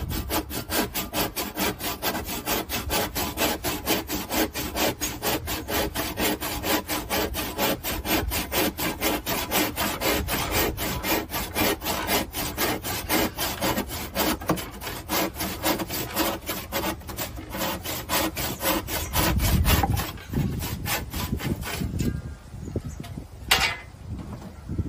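Handsaw cutting through a moulded quoin section in steady back-and-forth strokes, about three a second. The sawing stops about three-quarters of the way through, followed by a low thump and, near the end, a single sharp knock.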